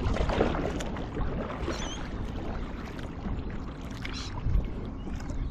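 Water splashing and sloshing around a kayak under way while trolling.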